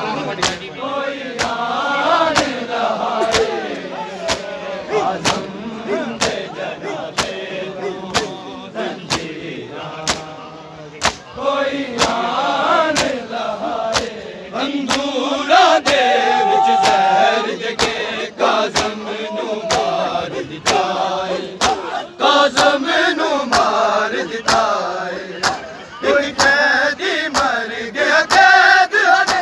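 A crowd of male mourners chanting together over the steady, rhythmic slaps of hands striking bare chests in matam.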